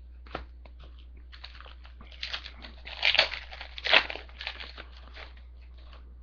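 A foil trading-card pack wrapper crinkling and tearing as it is opened, in irregular crackles that are loudest around the middle.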